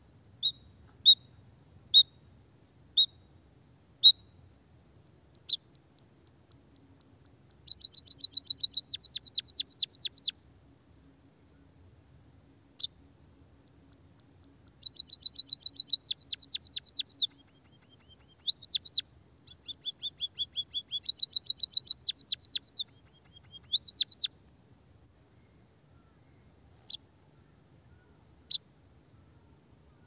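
White-headed munia calling and singing. First come single sharp, high chirps about a second apart. Through the middle it gives three long runs of rapid repeated notes, a fast 'kikikikik' trill, then goes back to a few single chirps near the end.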